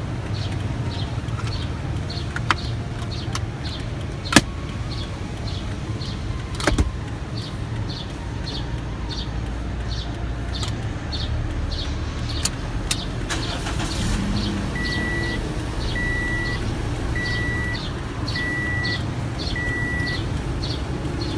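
Inside a car cabin: a steady low rumble with a fast, even ticking over it, and a few sharp clicks of the plastic armrest box's sliding lid being worked. In the last third, five short electronic beeps about a second apart from the car's dashboard warning chime.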